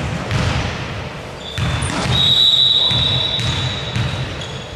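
A ball bouncing with thuds on a hard indoor court, with scattered voices. A steady, high-pitched whistle-like tone sounds from about one and a half seconds in until just past four seconds.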